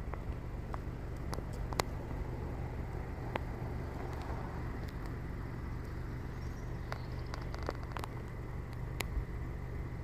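Pileated woodpecker pecking and chipping at a tree trunk while foraging: irregular sharp knocks a second or so apart, not a drumming roll, over a steady low hum.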